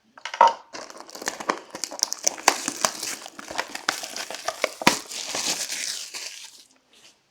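Crinkling plastic wrapping torn and crumpled in the hands while a trading card box is unwrapped, a dense run of small crackles with one sharper snap near the middle, stopping shortly before the end.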